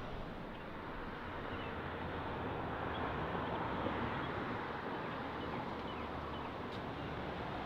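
Steady outdoor background noise with a few faint bird chirps.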